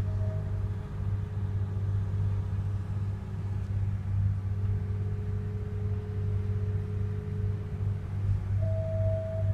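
Offshore oil rig fog horns sounding as long steady notes over a constant low rumble. A higher note ends just after the start, a lower note holds for about three and a half seconds from the middle, and the higher note starts again near the end.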